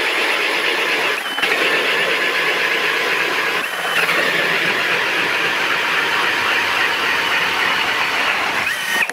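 Cordless drill spinning a hand-held ice auger, boring a hole through lake ice: a steady whir of the motor with the blades cutting the ice. The pitch rises briefly twice, about one and a half and four seconds in, and the drilling stops just before the end.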